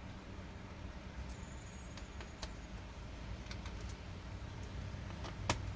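A few scattered light clicks and taps over a low steady hum, the sharpest click near the end.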